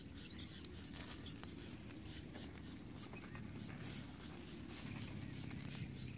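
Charcoal fire crackling under a whole crocodile roasting on a spit, with scattered sharp pops and the sizzle of basting on the hot meat, over a low steady rumble.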